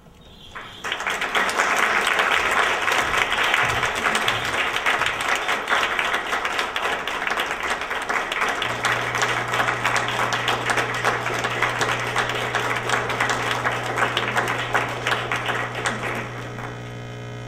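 Auditorium audience applauding. The clapping starts about a second in and dies down near the end. A steady low electrical hum comes in about halfway through.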